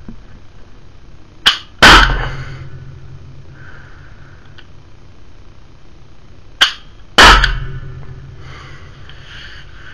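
Two shots about five seconds apart from a CO2-powered Umarex NXG PS 100 (HDR 50 type) .50 calibre rubber-ball gun fitted with a carbine conversion kit. Each shot is a short sharp click followed a moment later by a loud pop with a brief ringing tail.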